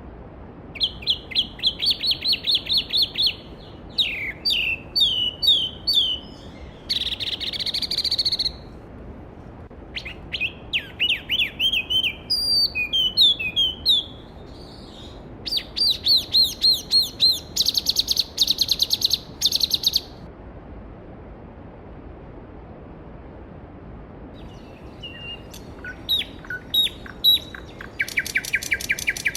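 A songbird singing in short, varied phrases of rapid repeated notes and trills, pausing for a few seconds past the middle, over the steady rush of a valley stream.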